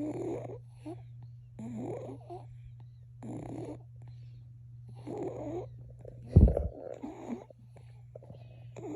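Babies snoring in their sleep, a rasping snore on each breath, about one every one and a half to two seconds, over a steady low hum. A single sudden low thump about six and a half seconds in is the loudest sound.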